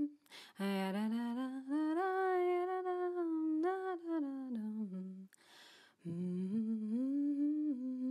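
A woman humming a wordless tune in held notes, two long phrases with a breath drawn before each.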